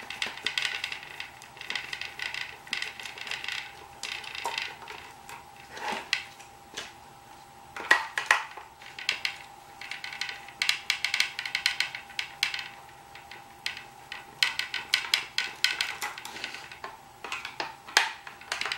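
Screws being turned out of a plastic machine housing with a screwdriver, in bursts of small scraping clicks with pauses between. There is a sharper click about eight seconds in, and a faint steady hum underneath.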